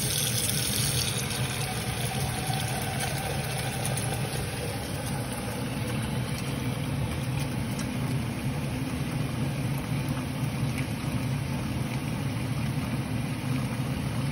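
Hot water running steadily from a kitchen tap into a steel pot in a stainless-steel sink, a continuous rushing sound.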